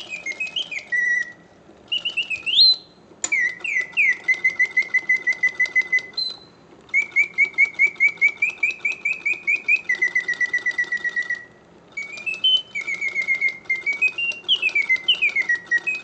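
Vintage 1950s Karl Griesbaum singing bird automaton whistling its bellows-driven song: fast trilled runs of chirps at about seven a second, with rising and falling glides, broken by three short gaps, over a light clicking of the mechanism. The song is strong and clear, and the notes oscillate as they should, the sign of restored, airtight bellows and a movement working properly.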